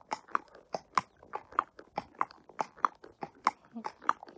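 Thoroughbred horse's hooves clip-clopping on a wet tarmac lane at a walk: an even rhythm of sharp clicks, about three to four a second.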